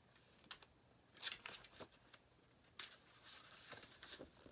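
Picture book being handled and opened: faint paper rustles and a few soft clicks, the loudest about a second and a quarter in and again near three seconds.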